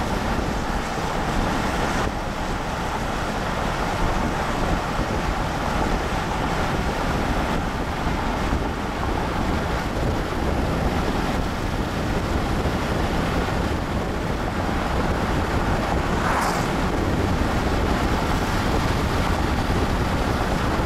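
Steady road noise and wind rush from a moving car driving along a highway, with wind buffeting the microphone. A brief sharp sound cuts in about three-quarters of the way through.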